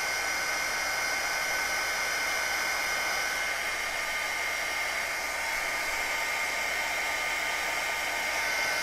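Handheld craft heat gun running steadily, a blowing hiss with a steady high whine, aimed at a freshly painted paper tag to dry the paint.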